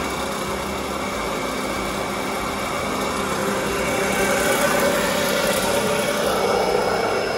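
Chris-Craft's Paragon P44R marine reduction transmission spinning in forward at about 1800 rpm on a test stand, a steady, pretty quiet machine hum that grows slightly louder about four seconds in. With its reduction gear set now matched to right-hand rotation, the gears run without howling.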